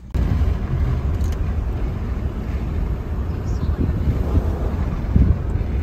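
Steady low rumble of road and engine noise inside a car's cabin while driving on a highway, starting abruptly just after the start.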